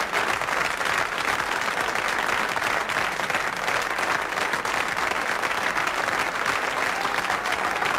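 A studio audience applauding: steady, dense clapping.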